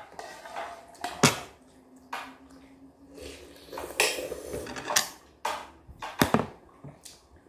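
Instant ramyeon noodles being slurped in several short pulls, with a metal utensil clinking against a stainless-steel pot between mouthfuls.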